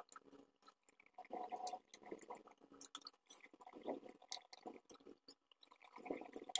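Faint handling noise from hands and pliers working on a vacuum cleaner motor: scattered light clicks and brief scraping and rustling of metal and plastic parts.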